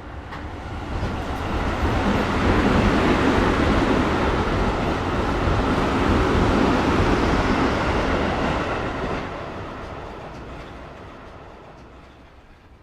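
Metro train passing by: a rumbling that swells as it approaches, holds at its loudest for several seconds, then fades away as the train recedes.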